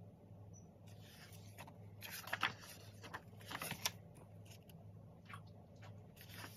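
Photobook pages being turned by hand: paper rustling and sliding, with two louder swishes about two and a half and four seconds in, over a low steady hum.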